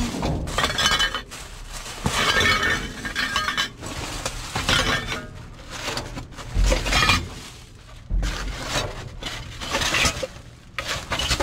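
Hands rummaging through trash in a dumpster: plastic bags and foam packing rustle and shift, with glassy clinks and crunches among the debris and a heavier bump a little past the middle.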